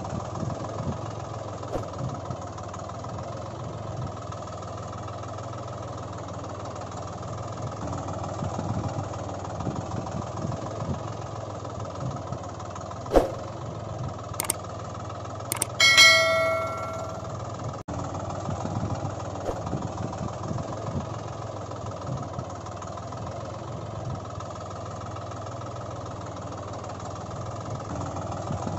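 A steady engine-like drone runs throughout. A little past halfway there is a sharp click, and a few seconds later a short bell-like chime that dies away, in the manner of a subscribe-button sound effect.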